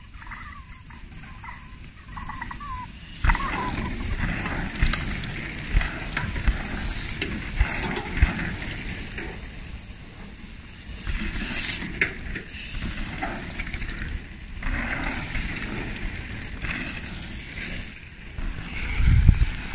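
Mountain bikes riding over dirt jumps: knobby tyres rolling and skidding on packed dirt, with scattered knocks and clicks from landings and bike parts. The sound swells louder near the end as a rider comes close.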